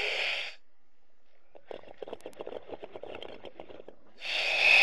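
A diver breathing through a diving regulator underwater: a loud hiss of air at the start and again near the end, with the crackle of exhaled bubbles in between.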